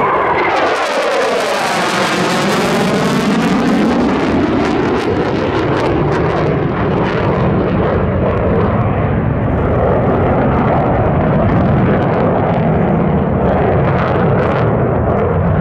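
Jet noise from a pair of F-4EJ Kai Phantoms' J79 turbojets as they pass low overhead. The noise is loud and steady, with a sweeping, phasing sound in the first few seconds, then a rough crackle as the jets fly on.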